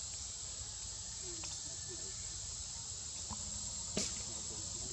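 Insects trilling in one steady, high, continuous tone, with a few faint short chirps and a sharp click about four seconds in.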